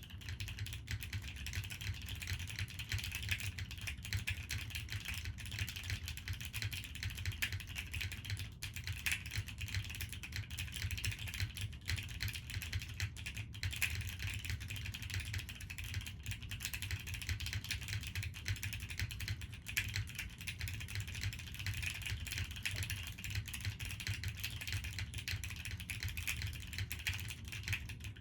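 Continuous typing on an A7X Nika S custom mechanical keyboard: top-mounted polycarbonate plate, broken-in Cherry MX Black linear switches and GMK Classic Beige keycaps, giving a steady stream of keystrokes.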